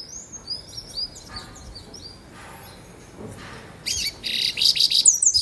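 Papa-capim seedeaters singing: a run of short, quick high chirps in the first second or so, softer notes through the middle, then a louder stretch of rapid, high song over the last second and a half.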